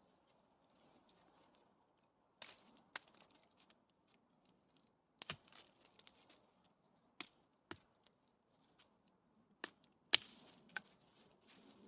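Scattered sharp clicks and knocks, about eight spread unevenly across the stretch, with faint rustling between them.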